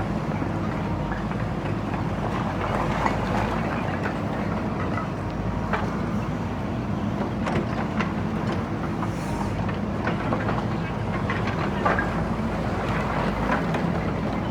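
JCB backhoe loader's diesel engine running steadily under load, with scattered sharp knocks and clanks of brickwork being broken and moved.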